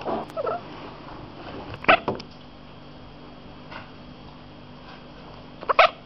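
Domestic cat making a few short, strange calls while watching seagulls through a window, the chatter a cat makes at birds it cannot reach; the loudest comes about two seconds in and a quick pair near the end.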